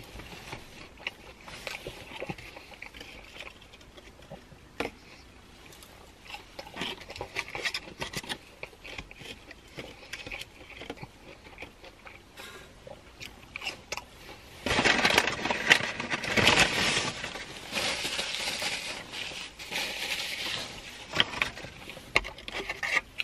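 Close-up chewing and mouth sounds of someone eating fast-food fries: many small wet clicks and soft crunches. About fifteen seconds in, a louder, denser stretch of noise lasts about six seconds before the small clicks return.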